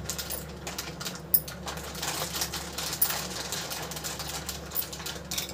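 Light, irregular clicks and taps as chopped capsicum, onion and tomato pieces are picked from a steel plate and set by hand onto a pizza base, over a steady low hum.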